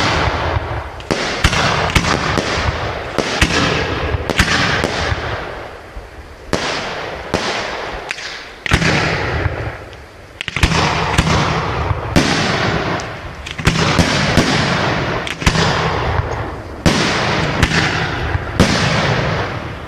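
Fireworks display: aerial bursts going off one after another, roughly one bang a second, each trailing off in a fading rush of noise.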